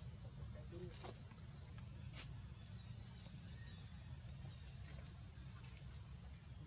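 Insects droning in two steady high-pitched tones over a low steady rumble, with a couple of faint clicks about one and two seconds in.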